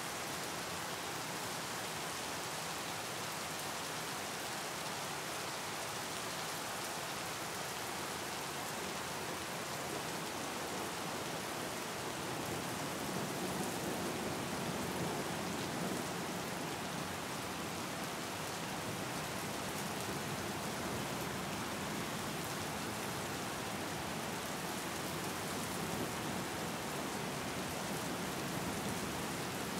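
Steady rain falling: an even hiss of many drops hitting a surface, with no thunder or other events. It grows a little fuller and deeper around the middle.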